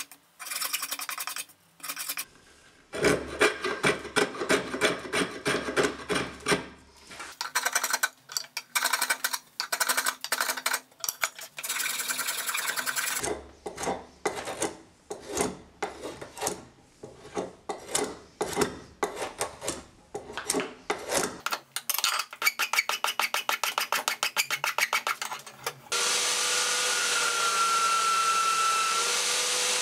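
Hand file rasping across a mahogany knife handle, fast back-and-forth strokes in runs with short pauses between. Near the end a belt sander comes in, running steadily.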